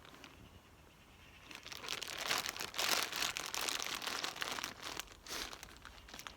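Packet of 19 mm plastic screw caps rustling as it is handled, starting about a second and a half in.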